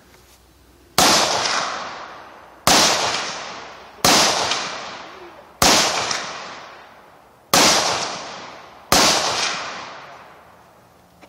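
Six rifle shots fired at an unhurried pace, about one every one and a half seconds, each a sharp crack followed by a long echo that fades away.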